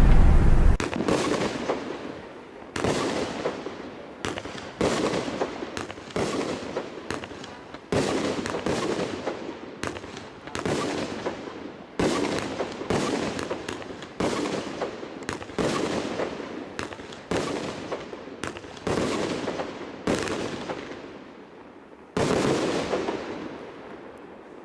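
THOR 20-shot consumer fireworks battery (cake) firing shot after shot, about one every second or two. Each shot is a sharp bang that trails off before the next.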